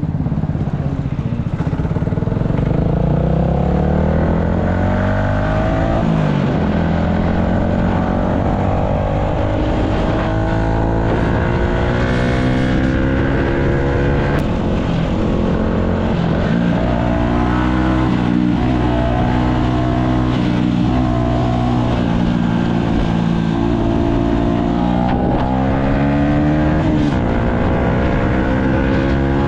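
Yamaha MT-125's single-cylinder four-stroke engine running under way, its pitch climbing in several runs that each end in a sudden drop as it changes gear.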